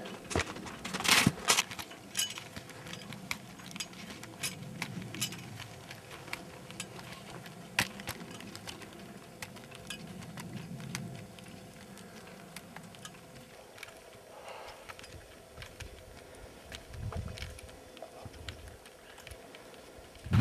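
Ski-touring gear on the move uphill in snow: skins sliding and shuffling, with irregular clicks and rattles from bindings and poles. The clicks are loudest and thickest in the first two seconds.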